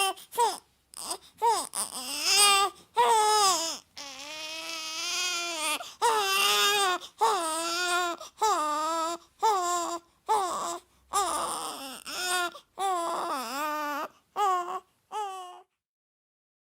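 A baby crying in a string of short wails with brief gaps between them. About four seconds in comes one longer, lower wail, and the crying stops shortly before the end.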